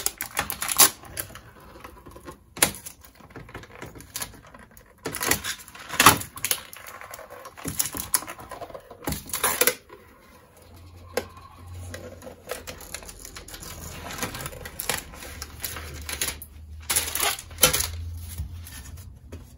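Plastic protective coating being peeled off the back of a cut glass mirror tile: irregular crackling and ticking, with a few louder snaps along the way.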